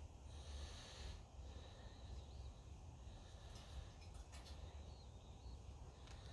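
Near silence: faint outdoor background with a steady low rumble.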